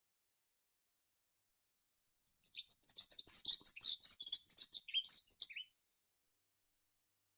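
A small songbird singing one rapid phrase of high chirping notes, starting about two seconds in and lasting about three and a half seconds, ending on a couple of lower notes.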